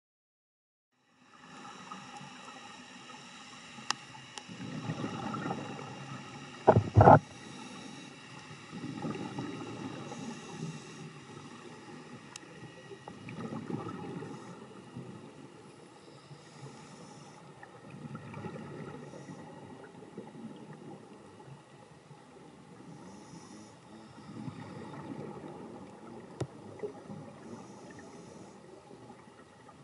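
Underwater scuba recording of a diver breathing through a regulator: bubbling exhalations every four to five seconds, with fainter hissing inhalations between them over a steady faint hum. A sharp knock about seven seconds in is the loudest sound.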